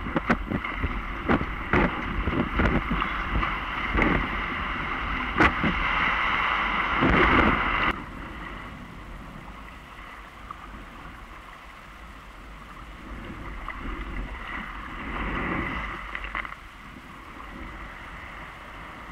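Water splashing and rushing around a Pyranha Fusion surf kayak and its paddle, with many sharp knocks and splashes of paddle strokes. The loud splashing cuts off suddenly partway through, leaving quieter lapping and rushing water that swells again near the end.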